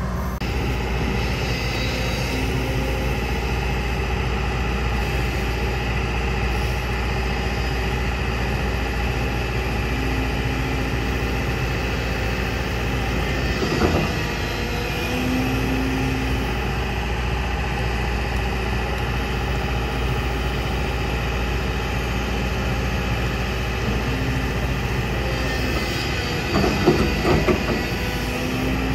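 Komatsu PC70 hydraulic excavator's diesel engine running steadily under digging load. There is a sharp metal clank about halfway through and a quick run of clanks and knocks near the end, as the bucket and boom work.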